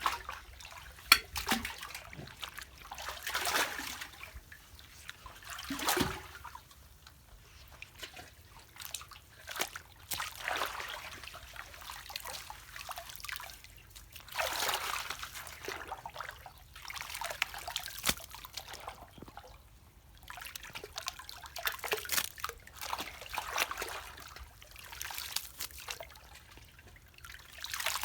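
Water splashing and trickling in irregular surges every second or two, with a sharp knock about a second in.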